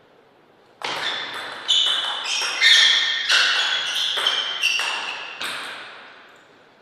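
Table tennis rally: the ball clicking back and forth between paddles and table, about a dozen sharp hits starting about a second in, each with a short ringing tail. The hits stop about five and a half seconds in.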